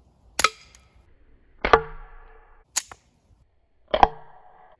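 Aguila Colibri .22 LR rounds, which use no powder and only primer compound, being fired: four sharp, small cracks a little over a second apart, several followed by a short ring.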